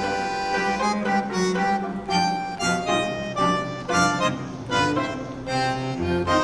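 Instrumental background music: a melody of quick changing notes over a bass line.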